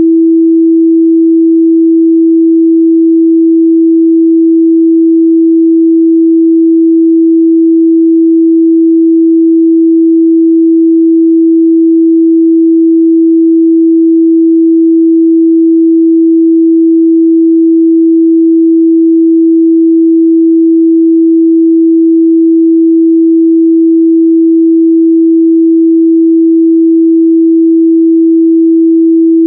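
A pure 328 Hz sine-wave test tone, one steady, unchanging pitch held at a constant loud level.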